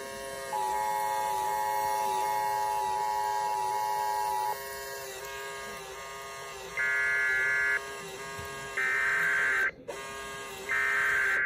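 Emergency Alert System tones: the two-tone EAS attention signal sounds steadily for about four seconds. After a pause come three roughly one-second bursts of higher warbling data tones, the SAME header that encodes the tornado warning. A steady buzz runs underneath.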